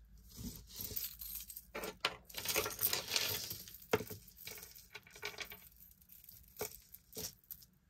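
A beaded necklace handled by hand: wooden beads and small metal charms clicking and clinking against each other, with the cord and chain rustling, and a few sharper clicks near the end.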